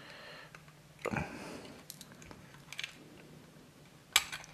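Small scrapes and clicks of a metal screwdriver working against the die-cast chassis of a model freight wagon as it is levered loose, with a louder scrape about a second in and a sharp click near the end.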